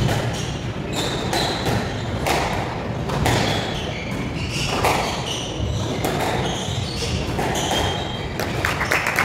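Squash rally: irregular sharp smacks of the ball off rackets and walls, with short high squeaks of shoes on the wooden court floor.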